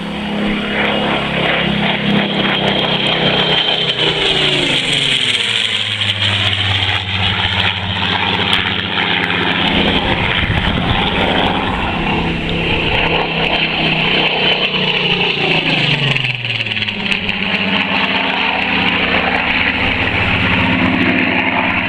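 Rolls-Royce Griffon V12 engine and propeller of a Supermarine Spitfire PR XIX running hard in a fast, low fly-by. The engine note drops in pitch as the aircraft passes, about four seconds in and again about sixteen seconds in.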